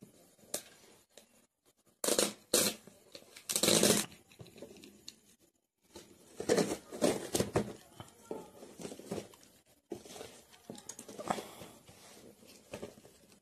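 Cardboard delivery box being cut and torn open, with packing tape ripping and cardboard rustling in irregular bursts.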